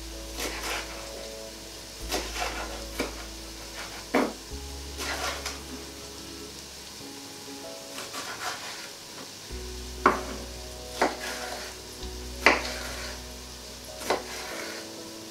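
Kitchen knife chopping a red pepper on a wooden chopping board: about a dozen sharp knocks at uneven intervals, the loudest in the second half. Under it, light sizzling from the pot and quiet background music with held notes.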